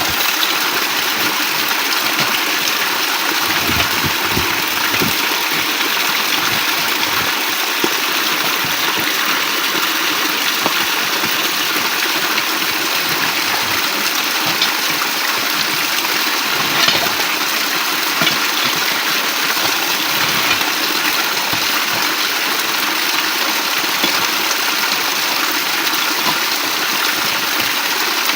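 Steady rushing water, a loud, even hiss with a few faint ticks and taps on top.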